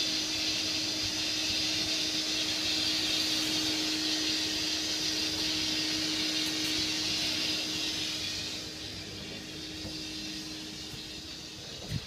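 An electric motor running steadily, with a low hum and a rush of air. It drops noticeably quieter about eight and a half seconds in.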